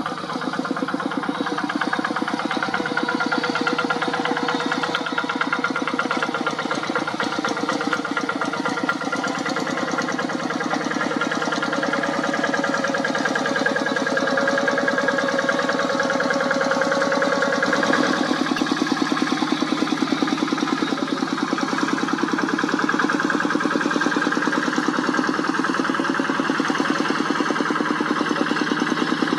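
Kubota single-cylinder diesel engine of a two-wheel hand tractor running steadily with a fast, even chugging beat. Its note changes a little past halfway through, and the beat is more pronounced after that.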